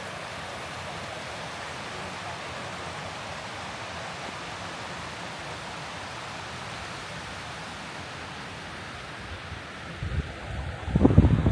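Steady rushing of strong wind. About ten seconds in, a loud gust buffets the microphone with a low rumble.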